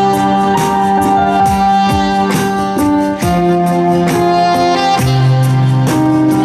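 Live jazz band playing a slow ballad: a held, singing melody over a bass line and a steady beat of about two strokes a second.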